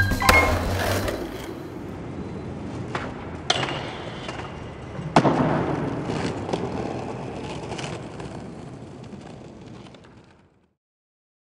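Skateboard wheels rolling, with three sharp cracks of the board hitting the ground, the loudest about five seconds in. A music track ends in the first second, and the rolling fades out near the end.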